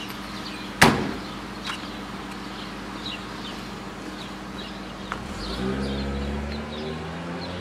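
A car door shuts with a single sharp knock about a second in, with faint bird chirps behind it. Near the end a car engine hum grows louder.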